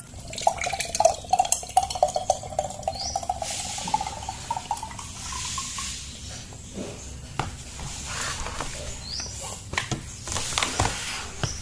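Liquid poured into a container, its gurgling tone rising slowly in pitch as the container fills, followed by a few scattered knocks.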